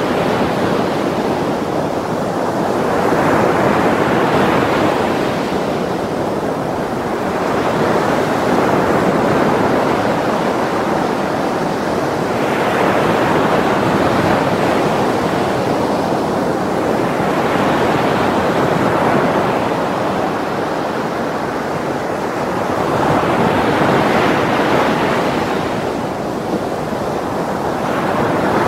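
Heavy ocean surf in a strong swell, waves breaking on a rocky shore. It makes a continuous rush of white water that surges louder every four or five seconds as each wave breaks.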